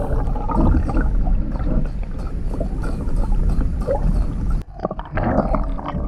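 An H2O Express TWS topwater walking lure heard underwater as it is worked across the surface: steady gurgling water noise with faint rattle clicks, which cuts out briefly about four and a half seconds in and resumes. It is a really kind of quiet bait under water.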